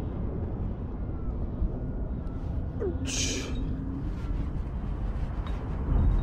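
Steady low rumble of wind on the microphone, with one short breathy hiss about three seconds in.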